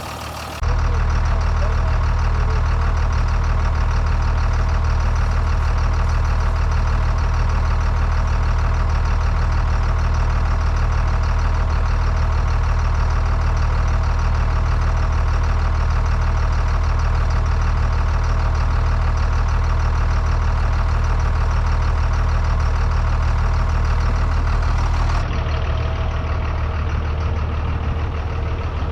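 Large truck engine idling steadily, a deep even hum. The sound jumps abruptly louder about half a second in and drops a little near the end.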